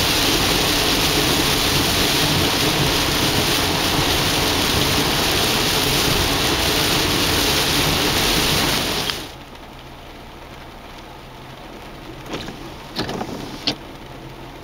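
Heavy rain beating on a car's windshield and roof while driving on a wet highway, a loud steady hiss with tyre spray that cuts off suddenly about nine seconds in. After it there is a much quieter low hum with a few sharp ticks.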